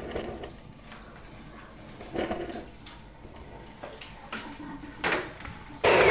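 Kitchen handling sounds: a few separate knocks and clatters of dishes and containers, with a louder clatter near the end.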